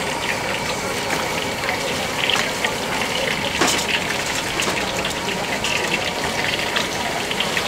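Steady sizzle and crackle of hot oil deep-frying, with one sharp metal clack of tongs about three and a half seconds in.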